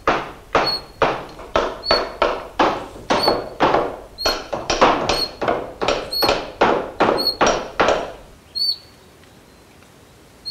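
Steady knocking blows, about two a second, stopping about eight seconds in. A bird's short high chirp repeats about once a second throughout.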